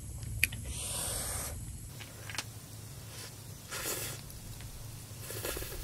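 A person eating very spicy pasta makes three short hissing mouth sounds, sharp slurping breaths drawn in against the heat of the chilli: about a second in, again near four seconds and once more near the end.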